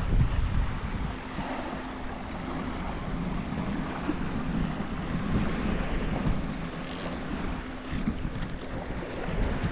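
Wind buffeting the microphone over small waves lapping at a lakeshore: a steady rush with a low rumble. A few brief clicks come about seven to eight seconds in.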